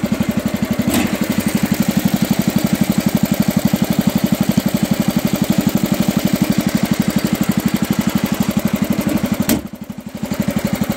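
7-horsepower Kohler engine of a 1969 Cub Cadet Model 72 garden tractor running steadily, with an even, rapid pulsing beat. A sharp click comes near the end, and the sound briefly drops away for about a second.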